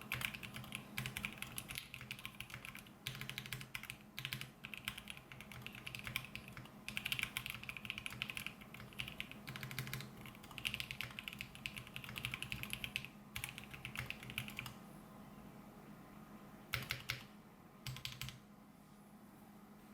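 Voice65 custom mechanical keyboard with lubed Alpaca linear switches, a polycarbonate plate and PBT keycaps being typed on in quick runs of keystrokes. The typing stops about three quarters of the way through, with two short bursts of keystrokes near the end.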